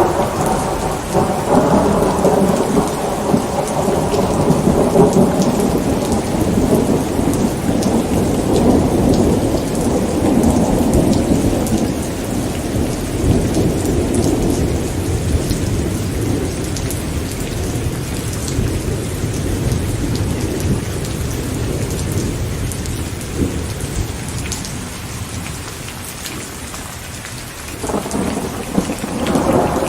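Steady rain falling. A long rumble of thunder rolls and fades away over about fifteen seconds, and another rumble breaks in near the end.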